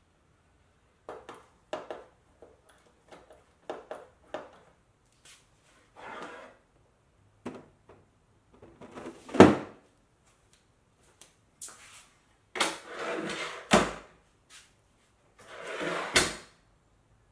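Plastic parts organizer boxes sliding along the rails of a plywood rack, each run ending in a sharp knock as a box seats, with a few small clicks and taps first. Near the end a fold-out plywood table leaf swings on its metal folding brackets, scraping and then knocking into place.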